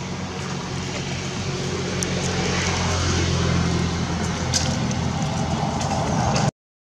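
A loud, steady engine hum with a rushing noise over it, cutting off suddenly near the end.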